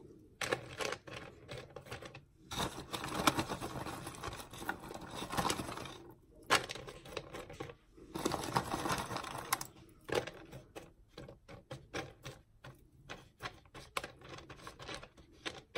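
Dry pine bark and coconut husk chips being scooped by hand from a glass jar and dropped into a plastic orchid pot: light clattering and rustling in bursts with short pauses, thinning to scattered single clicks in the second half.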